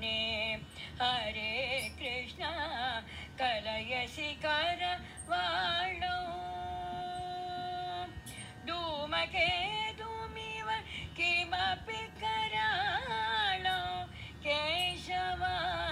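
A woman singing an ashtapadi in Carnatic style, in ornamented phrases that glide and waver in pitch, with one long steady held note about six seconds in.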